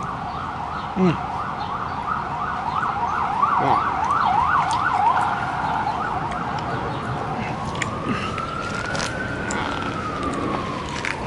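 Emergency vehicle siren in fast yelp mode, about three quick up-and-down sweeps a second. About two seconds after the yelp stops, it gives one slow wail that rises and then falls.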